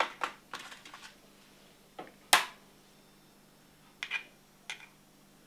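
Eggs being cracked and separated over a stainless steel mixing bowl: a series of sharp cracks and taps from the shells knocking against the rim and being handled. The loudest crack comes about two and a half seconds in.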